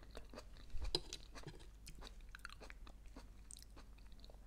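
A person chewing a mouthful of arugula and tomato salad: faint, irregular crunching and wet mouth clicks, with a louder crunch about a second in.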